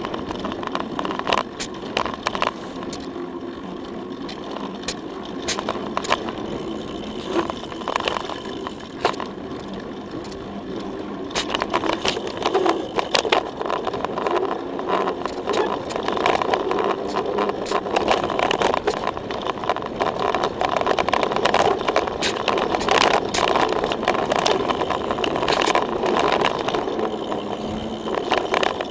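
Mountain bike riding dirt singletrack, recorded from a camera on the frame: a steady rush of tyre and wind noise with frequent sharp knocks and rattles as the bike goes over bumps, getting busier and louder about a third of the way in.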